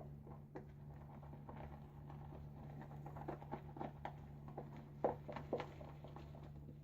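Badger shaving brush working soap lather in a bowl: faint, irregular wet swishing and soft clicks as the lather is whipped up.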